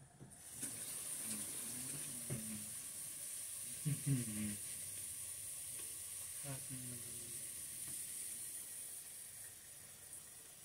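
Steady sizzling hiss of cooking on the electric stove, starting about half a second in. Faint voices are heard three times in the background.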